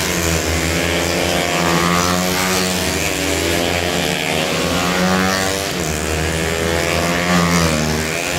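Small underbone racing motorcycles revving hard through a tight corner, several engines at once, their pitch rising and falling as riders back off and accelerate past.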